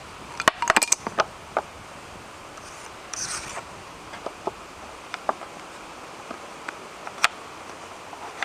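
Close handling noise: a quick cluster of sharp clicks and knocks about half a second in, a brief scraping rustle about three seconds in, then scattered single ticks over a steady hiss.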